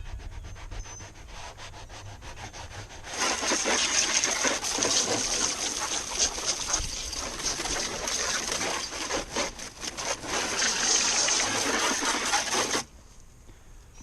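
A brush scrubbing a plastic kayak hull with cleaner in quick back-and-forth strokes: light at first, then much harder and louder about three seconds in, stopping abruptly near the end.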